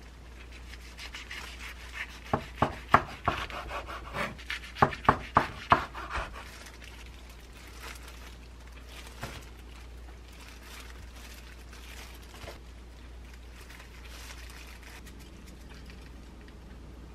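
Chef's knife sawing through a gimbap roll on a wooden cutting board: a dry rasping of the blade through the seaweed wrap, with a quick run of sharp taps from about two to six seconds in as the blade meets the board. After that, only faint, scattered handling sounds.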